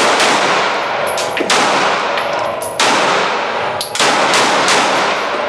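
Glock 19 9mm pistol fired at a slow pace: about four loud shots, one every second and a half or so, each trailing off in a long echo in an indoor range.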